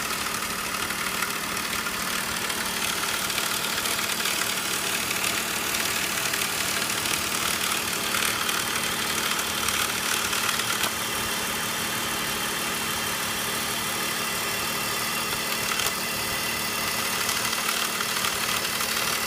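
BMW M54 3.0-litre straight-six engine idling with a steady rattle from its DISA valve, the intake-manifold flap valve having failed.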